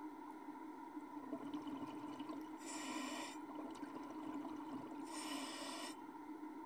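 Scuba diver breathing through a regulator underwater: two short hissing breaths about two and a half seconds apart, over a steady low hum.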